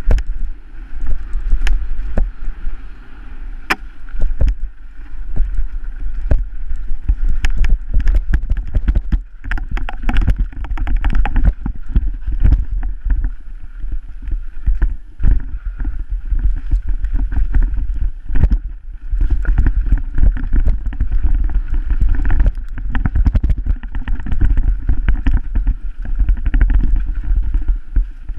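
Mountain bike descending a rough dirt trail, heard from a helmet-mounted camera: a steady heavy rumble of wind on the microphone, with frequent sharp knocks and rattles as the bike hits bumps and roots.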